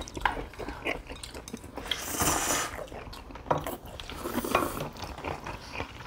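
Table sounds of people eating: irregular small clicks and scrapes of cutlery on plates, with a short burst of rustling or crunching noise about two seconds in.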